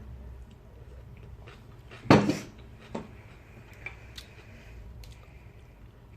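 Dishes and cutlery clinking at a meal table, with one loud knock about two seconds in, then a few lighter clicks.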